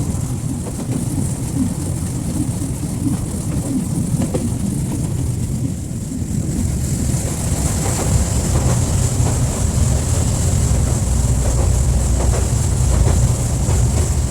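Open-air rail cart running along the track: a steady low rumble of wheels and motor mixed with wind noise, growing louder about halfway through, with a thin high-pitched whine throughout.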